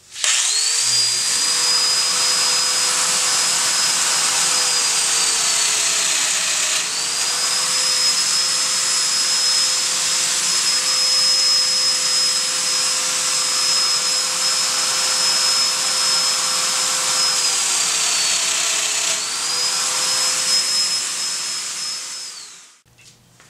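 Festool Domino joiner running together with its Festool dust extractor while cutting mortises in maple drawer parts: a loud, steady whine over a rushing suction noise. The whine's pitch sags and recovers twice, about 6 and 19 seconds in, and both machines stop near the end.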